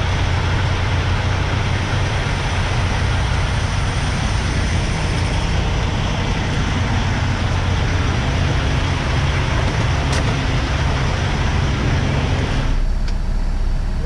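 Semi-truck on the road: a steady low engine drone under a dense hiss of road and wind noise. Near the end the hiss drops away abruptly, leaving the low engine hum.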